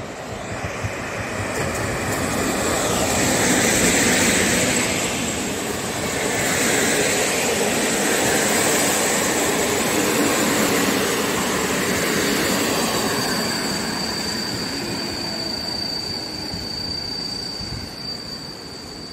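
A PKP EP07 electric locomotive hauling Intercity passenger coaches passes close by. The rumble and wheel noise swell to a peak a few seconds in, stay loud while the coaches go by, then fade as the train draws away. About two-thirds of the way through, a thin, steady, high whine sets in and lingers.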